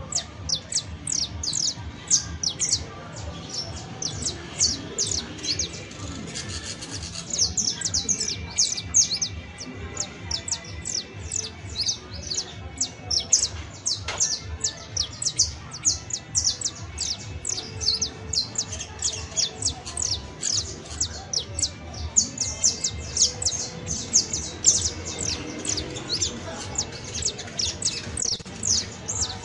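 Saffron finch (canario criollo) singing a long, unbroken run of sharp, high-pitched downward-slurred notes, several a second, over a low steady background rumble.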